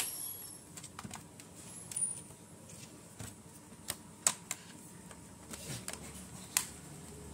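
Plastic clicks and taps from a Samsung NP300E4X laptop's bottom cover being pressed down so that it snaps flush against the case. The clicks are irregular and scattered, with the sharpest about four seconds in and near the end.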